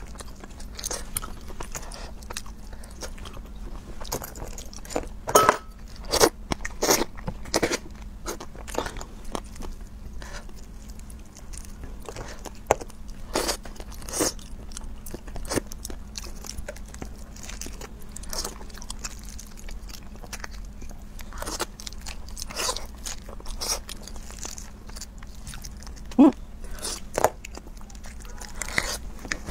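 Close-up eating sounds of a cooked starfish being torn open and its meat bitten and chewed: irregular sharp cracks and crunches of the stiff skin breaking, with wet chewing in between. The loudest cracks come in a cluster about five to seven seconds in, and once more near the end.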